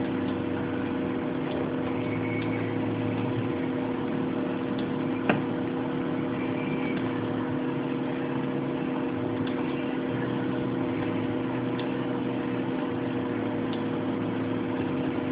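A steady background hum carrying two constant low tones, with scattered faint clicks and one sharper click about five seconds in.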